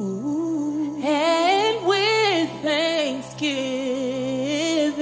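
Gospel worship song with a solo singer holding and bending notes with vibrato, without clear words, over a steady held chord.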